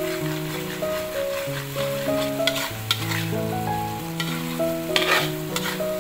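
Turmeric spice paste sizzling in oil in a pan, with a metal spatula stirring and scraping it in scattered clicks. Soft background music of held notes plays underneath.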